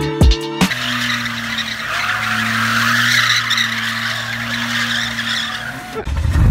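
A small kei pickup truck spinning donuts on asphalt: its engine held at steady revs under a continuous tyre skid that stops about six seconds in. A deep rumble starts just before the end.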